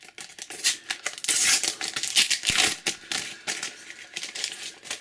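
A paper Panini sticker packet being torn open off camera, with crackly rustling and crinkling of the wrapper and stickers. It is busiest from about a second and a half to nearly three seconds in.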